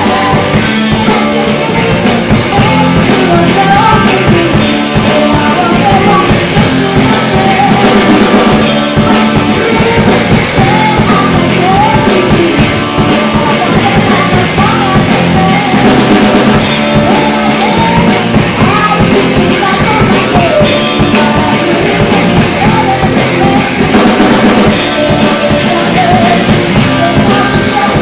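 Amateur rock band playing live: a girl singing into a microphone over electric guitar, bass guitar and a drum kit, in a loud, rough-sounding recording.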